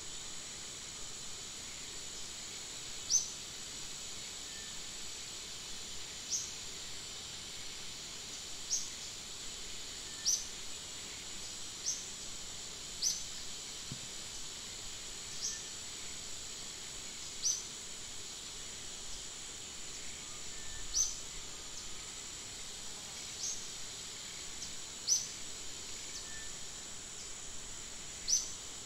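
A steady high insect drone, with a short high chirp repeating every one and a half to three seconds.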